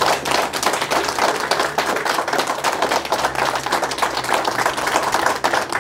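A small group applauding, a steady patter of many hands clapping.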